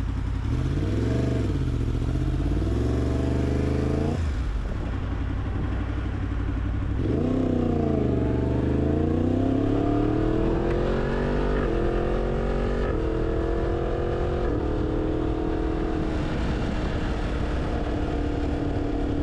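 Yamaha MT-10's crossplane inline-four engine heard from the rider's seat while riding. The revs rise and dip, then the throttle shuts off about four seconds in. The engine picks up again about seven seconds in, climbing in a few steps of pitch to a steady note over a steady hiss.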